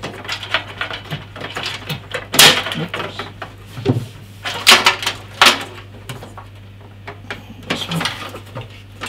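Front-panel header cables and connectors being pulled and sorted inside a PC case, clattering and scraping against the steel panel with a run of sharp clicks and knocks, the loudest about two and a half and five seconds in. A steady low hum sits underneath.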